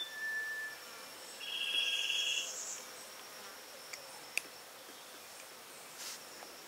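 Insects calling in forest: a steady high whine, with a buzzing insect trill about a second and a half in that lasts about a second.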